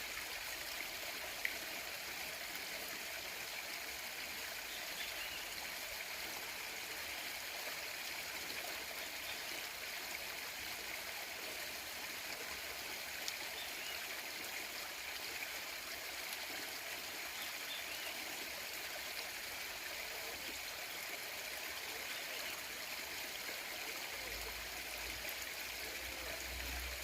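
Stream running steadily, its water trickling and gurgling, with one sharp click about a second and a half in and a low rumble near the end.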